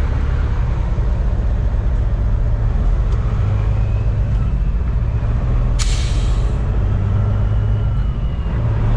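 Cat C15 inline-six diesel of a Peterbilt 389 semi running steadily as the truck drives, with a short, sharp hiss of air about six seconds in.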